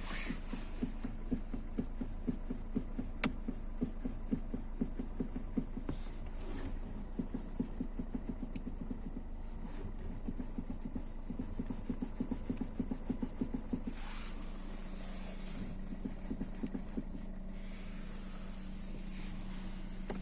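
Rapid, even low knocking from a fourth-generation Kia Rio, which the owner takes for a knock in the steering rack but suspects could instead be the audio speakers rattling. The knocking stops about two-thirds of the way through, leaving a steady low hum.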